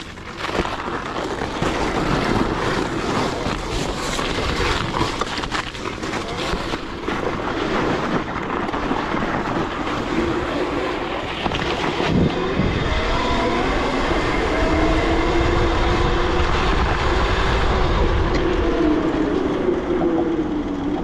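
72-volt electric Razor dirt bike riding over ice and snow: rattling and crunching with many sharp clicks from the tyres and frame, and from about halfway the electric motor's whine rising in pitch, holding, then falling away near the end.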